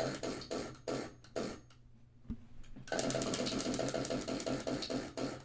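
A question wheel being spun: a few scattered clicks, then about three seconds in a fast run of ticking that stops just before the end.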